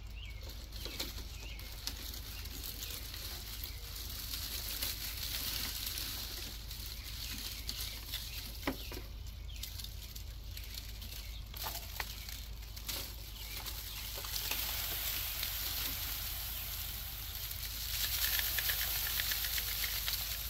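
Dry poppy stalks and seed heads rustling and crackling as they are handled, with scattered clicks. Near the end the noise grows louder into a dense hiss of fine ticks as the heads are tipped over a plastic tub and the seeds patter out.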